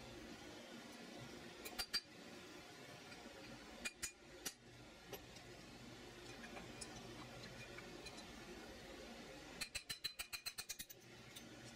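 Faint metallic clicks and clinks from hand tools on the steel AR-15 barrel and gas block while its taper pins are fitted: a few scattered clicks, then a quick run of about ten light taps near the end, over a low steady hum.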